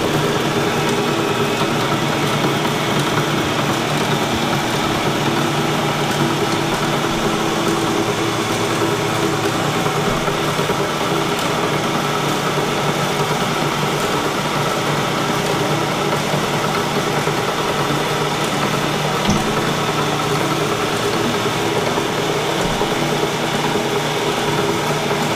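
Milling machine running steadily on a test run after being pressure washed: an even mechanical hum from its motor and hydraulic pump as the hydraulically driven table traverses.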